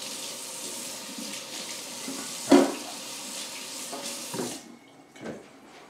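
Kitchen tap running into a sink, a steady rush of water that cuts off suddenly about four and a half seconds in. A single loud knock sounds about two and a half seconds in, and a couple of soft knocks follow after the water stops.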